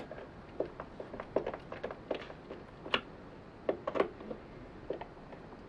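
Hand screwdriver turning a small screw into a plastic cord hold-down bracket: faint, irregular clicks and creaks as the screw is worked in by hand, spaced about half a second to a second apart.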